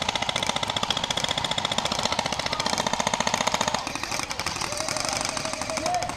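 Airsoft gun firing on full auto: a fast, continuous rattle of shots that goes on for several seconds and changes character about four seconds in.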